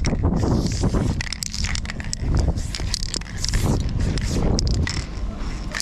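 Snow crunching under a person moving about, with knocks and scrapes of aerosol spray cans being picked up and set down, over a heavy low rumble of handling and wind on the microphone.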